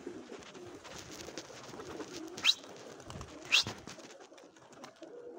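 Domestic pigeons cooing, with wings flapping as some take off from the roof. About halfway through come two short, sharp high chirps a second apart, the loudest sounds.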